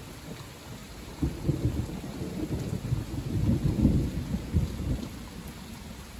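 A long, rolling rumble of thunder begins about a second in, builds, and dies away after about four seconds, over steady rain.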